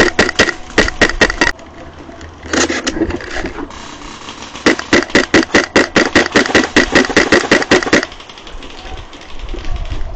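Airsoft guns firing in rapid full-auto bursts, about six sharp cracks a second: one burst that stops about a second and a half in, a short one a little later, and a longer one of about three seconds.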